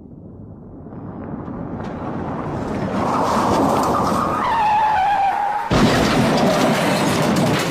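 Car sound effect: vehicle noise swelling louder, then a tyre screech, a squealing tone that dips slightly, cut off about six seconds in by a sudden, louder rush of noise.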